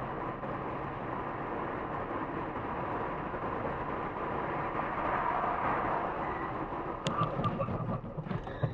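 Steady road noise inside a moving car's cabin, the tyre and engine hum picked up by a dashcam. A few sharp clicks and low knocks come near the end.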